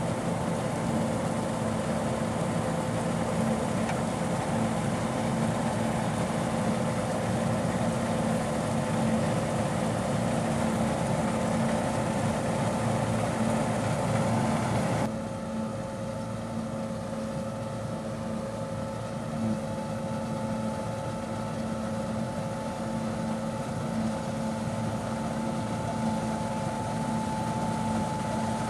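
John Deere 1470 combine harvester running steadily while cutting wheat: a continuous drone with a steady whine. About halfway the sound changes suddenly to a slightly quieter, duller drone with a higher whine.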